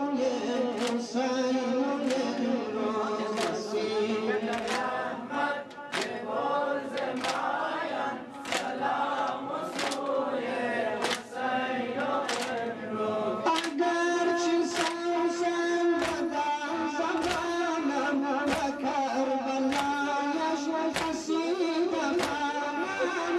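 A group of voices chanting a Muharram mourning lament in unison, kept in time by a sharp slap or clap about once a second. About halfway through the chant moves to a new, steadier line.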